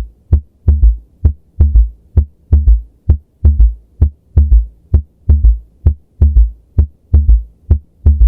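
Recorded heart sounds with a fourth heart sound (S4, presystolic gallop): a three-beat gallop rhythm of short low thuds repeating about once a second. The extra sound just before S1 is the sign of forced atrial contraction against a stiff ventricle.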